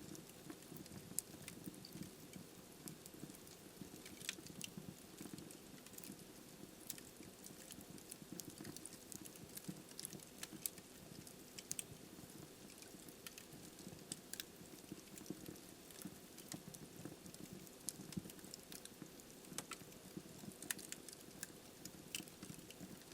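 Wood fire burning in a fireplace: sharp crackles and pops at irregular intervals over a soft, steady low rush of the flames.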